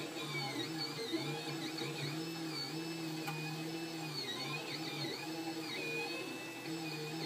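Solidoodle 3D printer running a print: its stepper motors make steady, pitched tones that slide up and down as the print head changes speed and direction.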